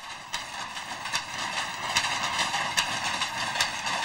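Old mechanical weaving looms running, a steady machine clatter with sharp regular clacks about two to three a second.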